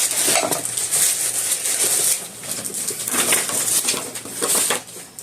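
Rustling, crackling and clicking from the small plastic parts of a clip-on phone LED light being handled and fitted together.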